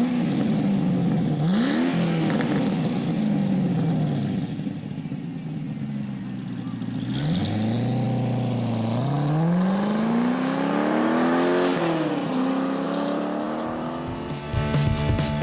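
Pontiac GTO's 6.0-litre LS2 V8 revved through a Pypes X-box mid-muffler and Pype Bomb axle-back exhaust: a few quick throttle blips first, then a longer rev that climbs for about three seconds and drops back to a steady idle near the end.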